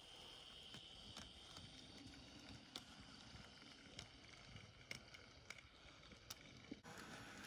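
Faint sound of an N gauge model train running slowly past: scattered light clicks from the wheels on the track, with a faint motor whine in the first couple of seconds. The background changes abruptly near the end.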